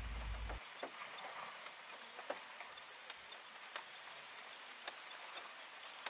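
Rain falling steadily: a faint, even hiss with scattered sharp ticks of single drops.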